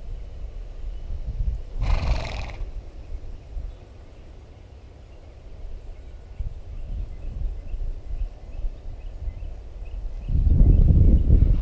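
Wind rumbling on the microphone beside a grazing horse, with one short breathy snort from the horse about two seconds in. A heavier gust of wind buffets the microphone near the end.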